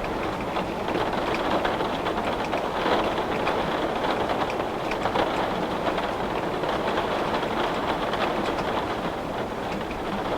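Heavy rain falling on glass: a steady, dense hiss made of countless small drop impacts.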